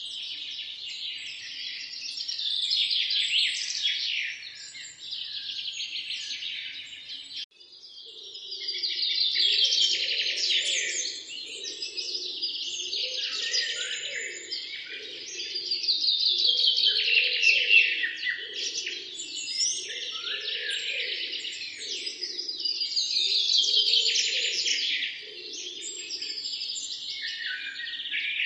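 A dense chorus of many small birds chirping and twittering, broken by a sudden short gap about a quarter of the way in. After the gap, a lower sound repeats about once a second beneath the chirping for most of the rest.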